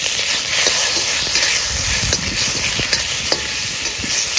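Pork pieces frying in hot fat in a pan, a steady sizzle with irregular crackling pops, as the fat renders out of the meat into cooking oil.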